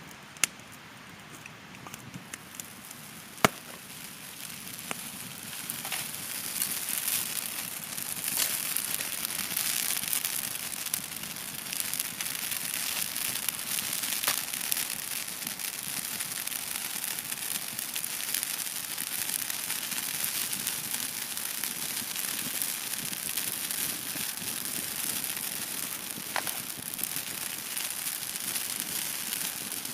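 Wood campfire crackling, with a few sharp pops in the first few seconds; after about five seconds the crackling grows denser and louder and keeps on steadily.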